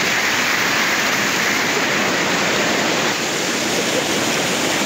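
Water rushing steadily over the spillway of a lake filled to overflowing.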